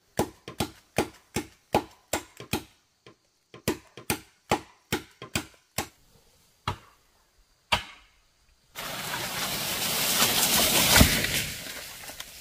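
A blade chopping into wood with quick, regular strikes, about three a second, then two single blows. A swelling rush of leaves and branches follows and peaks in a loud crack near the end as the cut tree comes down.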